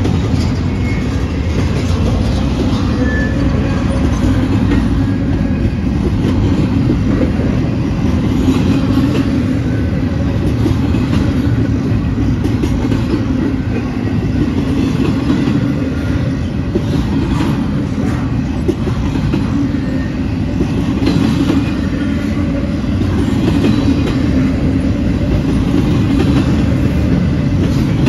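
Double-stack intermodal well cars of a CSX freight train rolling past: a loud, steady rumble of steel wheels on rail, with occasional clacks.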